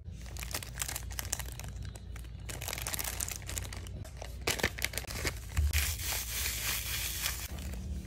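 Plastic bags and packets crinkling and rustling as they are handled, a continuous run of crackles that grows louder after about five seconds.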